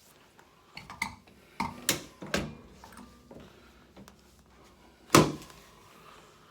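Chiropractic adjustment of the upper back and shoulder: a few short knocks and clicks in the first half, then one loud sharp knock about five seconds in as the thrust is delivered.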